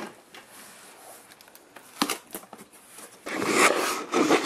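Cardboard box being opened by hand: a sharp click about two seconds in, then rustling and crinkling of the box flaps and the plastic bags packed inside, louder over the last second.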